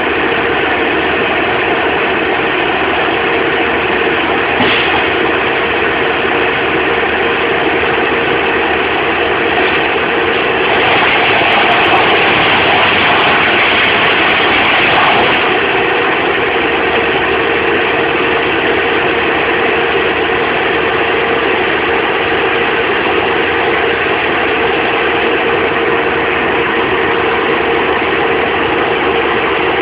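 Engine running steadily, growing somewhat louder for a few seconds about eleven seconds in.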